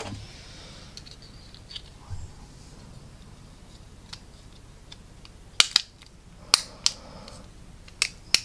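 Sharp clicks and taps of hard plastic model kit parts being handled and pressed together, with three quick pairs of loud clicks in the second half.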